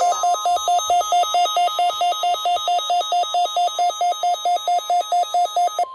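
NOAA Weather Radio weekly-test warning alarm: a steady single tone of about 1 kHz, with an alert receiver's own alarm beeping rapidly over it, about five beeps a second. The beeping cuts off near the end while the steady tone carries on.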